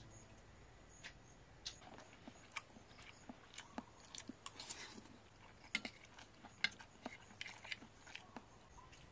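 A person eating with a spoon: soft chewing with small, irregular clicks of the spoon and mouth, a dozen or more scattered through.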